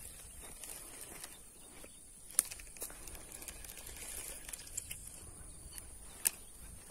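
Swamp ambience: a steady high-pitched insect chorus, with light rustling and scattered small clicks. Two sharp clicks stand out, a few seconds apart.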